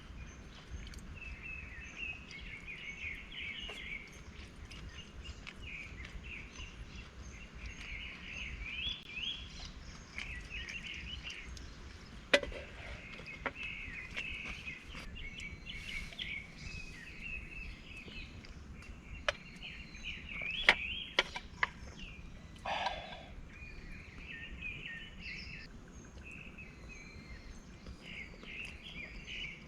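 Small birds singing over and over in short chirping phrases, with a few sharp clicks or knocks, the loudest about twelve and twenty-one seconds in.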